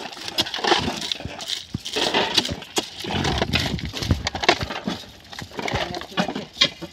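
Ballast stones clattering and scraping as a hand rake drags them into a metal pan, a run of irregular clinks and knocks.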